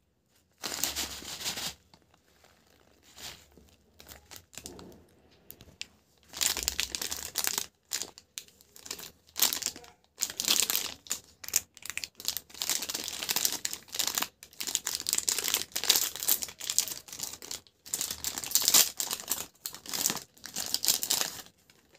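Plastic snack wrappers crinkling in the hands, with a few soft rustles at first, then a packaged cake's plastic wrapper crinkling and tearing steadily as it is pulled open.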